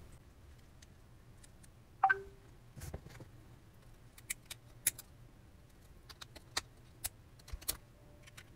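Small, irregular clicks and ticks of a thin metal pick working at a mobile router's circuit board and display connector, with a louder click about two seconds in.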